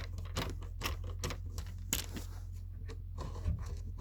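Irregular light clicks and taps of hands and tools working on a subwoofer's parts during disassembly, over a steady low hum.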